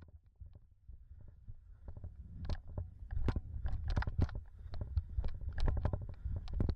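Muffled low rumble with irregular knocks and clunks, several a second, from a loaded plastic toboggan being dragged over a snowy trail, fading in over the first few seconds. It is recorded by a GoPro sealed in its waterproof case, which all but blocks the microphone and makes the sound dull and boomy.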